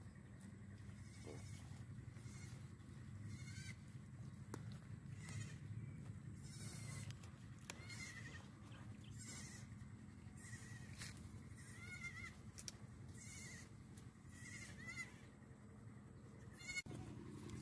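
Goats bleating faintly: a scattered series of short, quavering, high-pitched bleats over a steady low hum.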